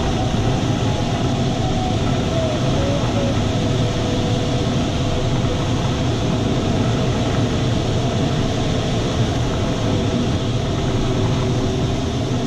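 Steady rush of airflow over a glider's canopy and through the cockpit in flight, with faint tones that drift up and down in pitch underneath.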